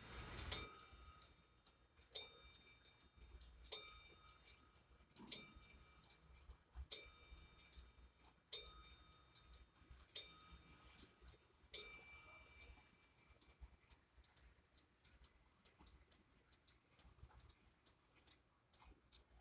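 Eight-day cuckoo clock striking the hour: eight ringing strokes on its gong, about a second and a half apart, each fading away. After the last stroke, only the faint ticking of the movement is left.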